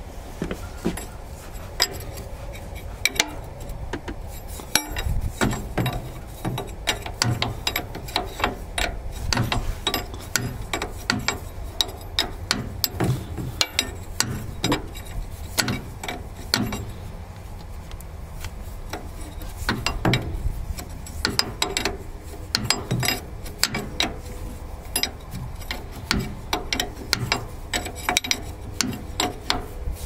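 Steel wrench clicking and clinking against hose-fitting flange bolts as they are turned and tightened by hand, in many irregular sharp clicks.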